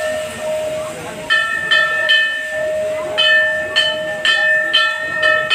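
Temple bells being rung over and over: a string of clear metallic strikes, about two a second, each ringing on, over a steady ringing tone.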